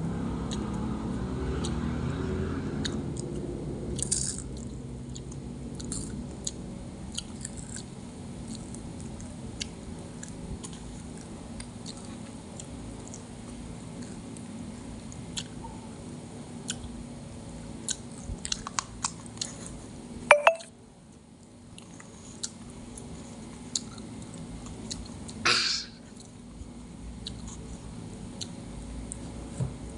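Close-miked chewing and biting of fried battered food, kwek-kwek and calamares, with many small crunches and mouth clicks. Two louder brief sounds come in the second half.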